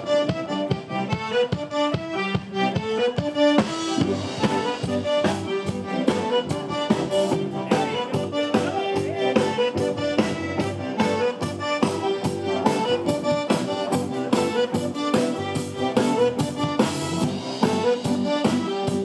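Instrumental music with a steady beat and a melody line, getting fuller about four seconds in.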